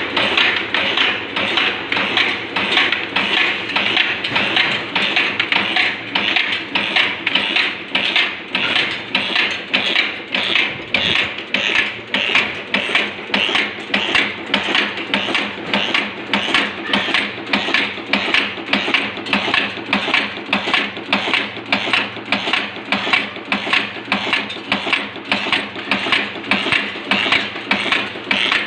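One-die two-blow cold heading machine running at production speed, heading stainless steel screw blanks in a fast, even clatter of about three strokes a second.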